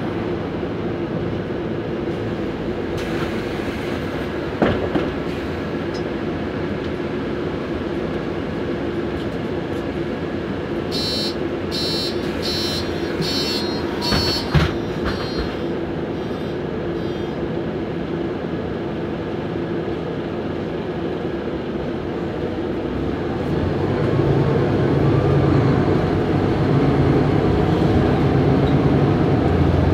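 Interior ride noise of a Mercedes-Benz O530GL CapaCity L articulated bus in motion: a steady drone of engine and running gear. There are a couple of sharp knocks and a quick run of high beeps around the middle. The low engine hum grows louder about 24 seconds in.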